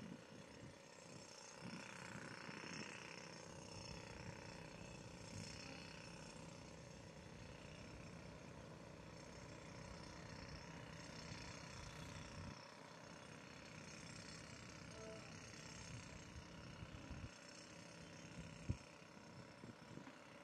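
Near silence: faint outdoor background hiss and low rumble, with a single sharp click near the end.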